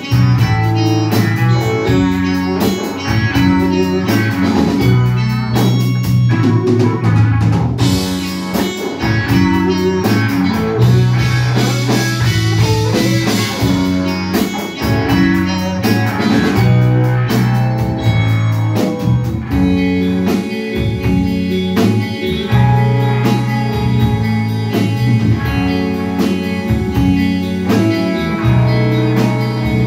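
Live rock band playing: electric guitars and bass guitar over a drum kit, with sustained low bass notes and steady drum hits.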